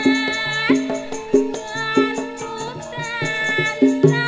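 Javanese gamelan (karawitan) music: bronze metallophones strike and ring in steady stepped notes under sharp drum strokes, with a high sliding melody line gliding above them.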